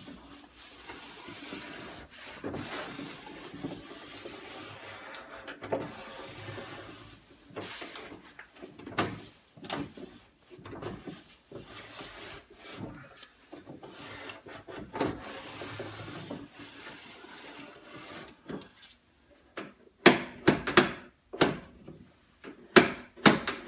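Metal parts of a 1989 Toyota pickup's door mechanism (window regulator, door handle and lock linkage) being worked by hand after lubrication: irregular rubbing and scraping with scattered clicks, then a quick run of sharp, loud clacks near the end.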